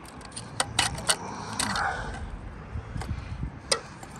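A few sharp clicks and a short rustling scrape from handling the CCTV camera's back box and cabling, with the engineer tugging at a cable that is jammed tight in the box.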